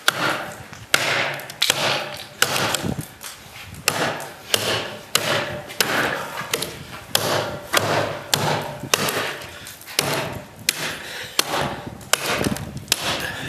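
A heavy competition cutting knife chopping into wood, with a steady run of sharp strikes about one to two a second.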